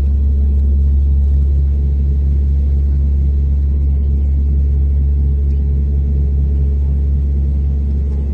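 Steady drone of a Dash 8-300's Pratt & Whitney PW123 turboprops heard from inside the cabin: a deep rumble with a steady propeller hum over it that holds one pitch throughout.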